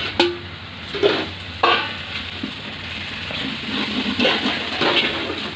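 Onion-tomato masala sizzling in oil in a large metal pot, stirred with a flat metal spatula that scrapes against the pot several times.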